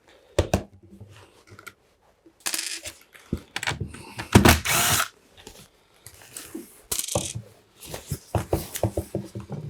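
Screws being worked out of the plastic housing of a Makita DVC260 backpack vacuum: short runs of a screwdriver about 2.5, 4.5 and 7 seconds in, with clicks and small metal screws clinking.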